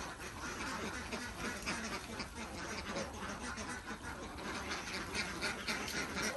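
A flock of domestic ducks quacking, many calls overlapping without a break.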